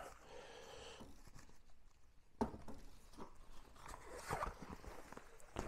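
Faint rustling of small plastic parts being handled, with a sharp click about two and a half seconds in and another near the end, as the drone's gimbal protector is clipped on.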